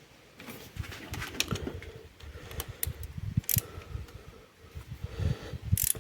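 Irregular clicks, taps and low knocks of parts and tools being handled, some sharp and bright, none in a steady rhythm.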